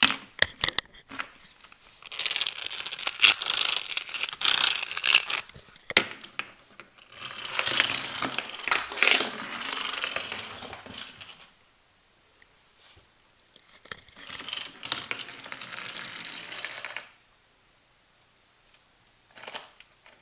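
Crinkling and rustling of paper or plastic in three spells of several seconds each, with scattered sharp clicks, separated by short quiet gaps.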